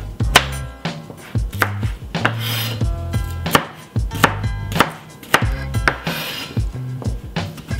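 Chef's knife chopping carrots and then celery on a plastic cutting board: a series of irregular sharp knocks of the blade hitting the board, with two longer strokes as it slices through.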